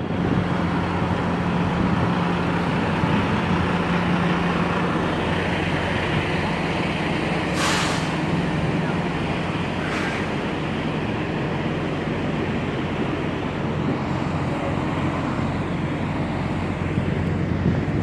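Truck's diesel engine idling steadily, with two short air-brake hisses about eight and ten seconds in, the first louder.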